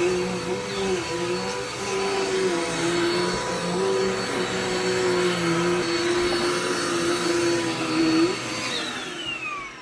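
Vacuum cleaner motor running, its pitch dipping and recovering several times as it is worked over the floor. About eight and a half seconds in it is switched off and winds down with a falling whine.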